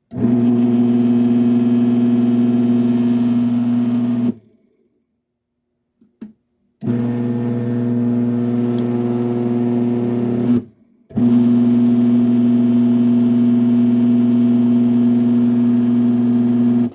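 Genie IS550/A screw-drive garage door opener running under power: a loud, steady motor hum driving the screw, in three runs of about four, four and six seconds with short stops between and a click in the first stop. The opener works.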